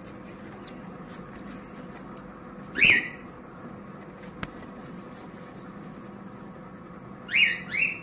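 Cockatiel giving short, rising calls: one about three seconds in and two in quick succession near the end, over a steady low hum.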